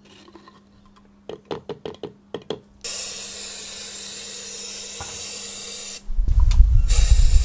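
A few light taps and scrapes as powder coat is spooned into the plastic cup of a powder coating gun, then the gun spraying powder with a steady hiss for about three seconds. About six seconds in, a loud low rumble takes over.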